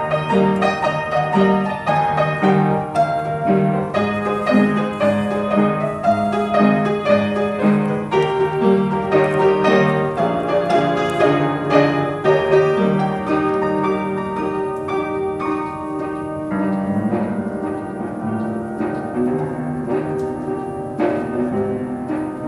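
Background piano music: a steady, flowing run of notes.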